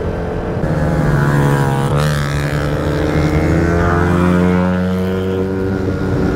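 Vespa Primavera 150 scooter's single-cylinder engine running steadily at cruising speed, with a brief rise and fall in pitch about a second in.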